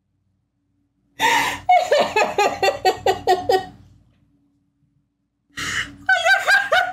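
A woman laughing hard in two bouts. About a second in, a sharp gasp is followed by a rapid run of laughs, about five a second, each falling in pitch. After a short pause, another gasp starts a fresh run of laughs.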